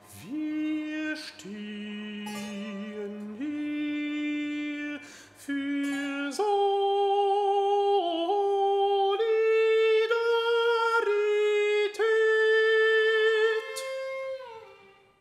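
A countertenor sings a slow line of long held notes, mostly climbing in pitch. It grows louder about six seconds in and fades away near the end.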